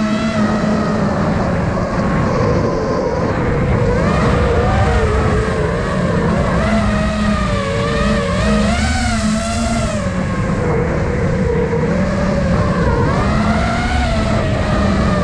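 iFlight Nazgul Evoque F5 five-inch FPV quadcopter's motors and propellers whining as heard on board, flown at high throttle. The pitch wavers up and down with throttle changes over steady wind rush.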